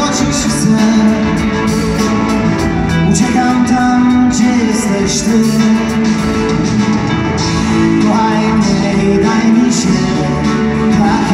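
A rock band playing live in a large arena, heard from the audience seats: drums with steady cymbal strokes, bass and electric guitar.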